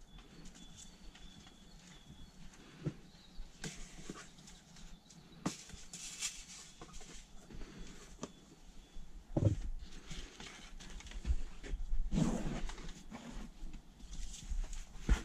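Gloved hands rustling and pressing potting soil over the holes of a plastic seed tray, with scattered taps and knocks on the plastic tray. Near the end, a longer rustle of soil being scooped from a plastic tub.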